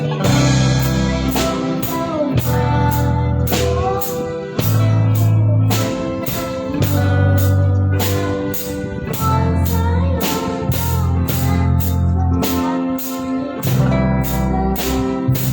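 A band playing live: a drum kit keeps a steady beat of about two strokes a second under bass and guitar.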